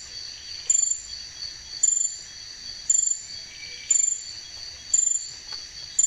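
Night insects: a steady high-pitched insect drone, with a sharp, high cricket-like chirp repeating about once a second.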